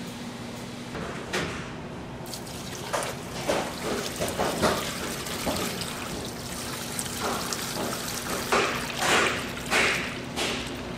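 Steady machine hum under irregular knocks, clicks and swishing noises of hands-on work, with a few louder swishes near the end.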